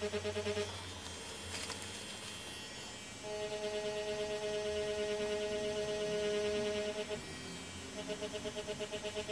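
DragonHawk Mast Archer wireless rotary tattoo machine giving a steady electric hum as it works the needle into fake skin. The hum cuts out twice, about a second in and again near the end, and comes back each time.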